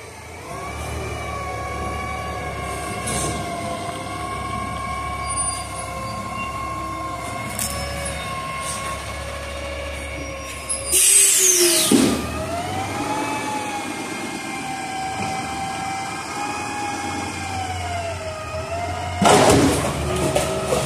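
Front-loader garbage truck running hard, its engine and hydraulic pump giving a steady whine that drifts slowly up and down in pitch. About eleven seconds in there is a loud hiss that sweeps down in pitch, and near the end a loud burst of noise as the lifted container tips its trash into the hopper.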